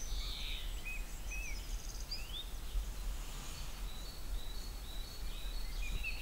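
Small birds singing and chirping: short whistled notes and quick chirps, with a run of short repeated high notes in the second half, over a steady low rumble.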